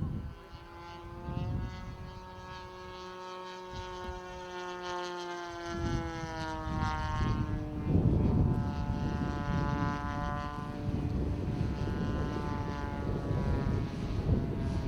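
Engine of a radio-controlled Focke-Wulf 190 model plane running in flight, its pitch sliding slowly down over the first few seconds, then holding steady at a higher pitch. Wind rumbles on the microphone from about six seconds in.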